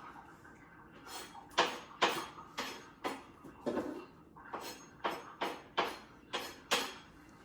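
Kitchen things being handled and set down while a table is cleared: a dozen or so sharp knocks and clatters in an irregular run, a couple each second.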